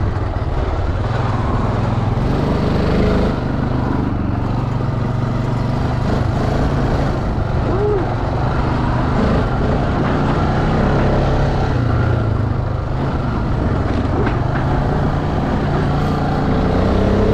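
Four-stroke off-road motorcycle engine running under way, its pitch rising and falling a little with the throttle.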